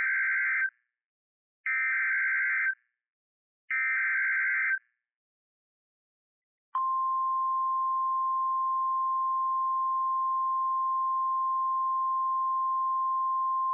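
Emergency Alert System SAME header: three bursts of warbling two-pitch digital data, about a second each and a second apart. Then, about seven seconds in, a steady single-pitch NOAA Weather Radio warning alarm tone starts, signalling that a new alert is beginning.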